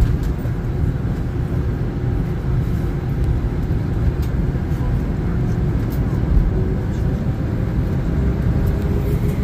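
Airliner engines and the takeoff roll heard inside the passenger cabin: a loud, steady low rumble with a faint steady hum over it.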